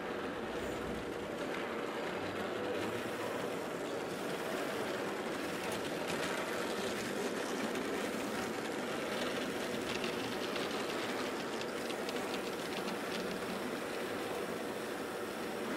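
Electric tinplate toy gantry crane running steadily as its grab bucket is lowered and raised, with light clicking in the second half.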